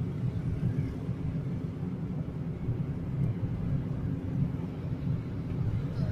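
Steady low rumble of a car's engine and tyres, heard from inside the cabin while cruising on a smooth road.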